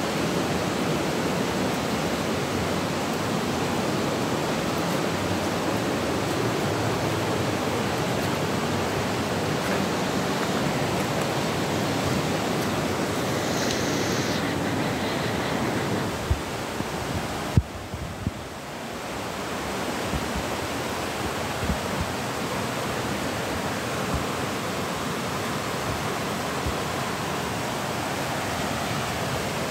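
Steady rush of a fast mountain stream tumbling over rocks in a gorge. A few sharp thumps a little past halfway, with the rush briefly dipping, then steady again.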